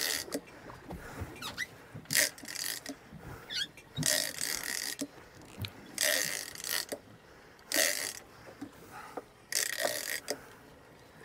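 Big-game fishing reel's drag paying out line in short rasping bursts, one every second or two, as a hooked bluefin tuna pulls against the tightened drag.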